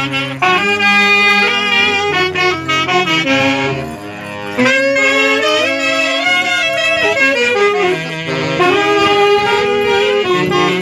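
Live dance music from a band of saxophones and other wind instruments, playing a continuous melody with a brief dip in loudness about four seconds in.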